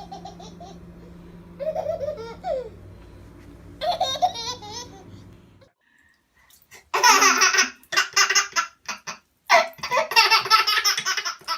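A baby laughing in repeated bursts, loudest in the second half after a short break. Under the first half there is a low steady hum.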